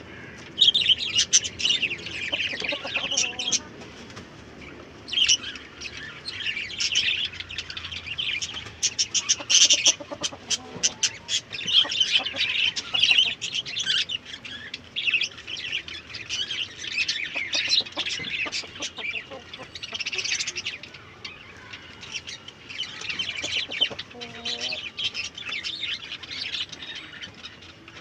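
Country chickens chirping continually in high-pitched calls, with a short lower cluck near the end.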